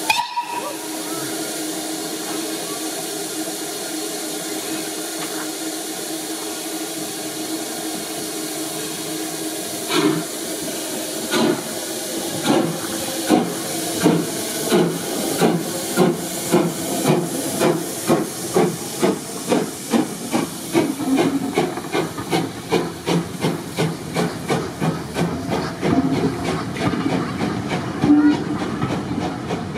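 Stroudley 'Terrier' 0-6-0 steam tank locomotive standing with a steady hiss of steam, then pulling away. Its exhaust beats start about ten seconds in, slow at first and quickening to about three a second as the train gathers speed.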